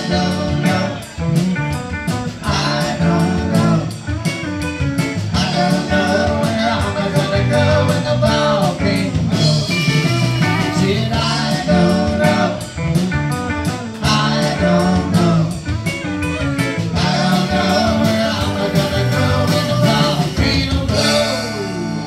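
Live rock band playing: electric guitar, electric bass and drum kit with a man singing through the PA. Near the end the drumming stops and the last notes ring out as the song ends.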